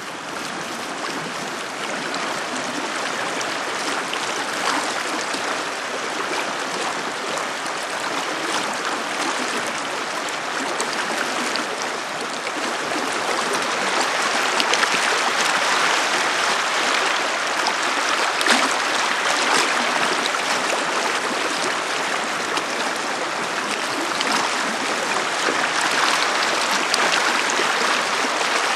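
Shallow river water rushing steadily over rocks and gravel in a riffle, growing a little louder about halfway through.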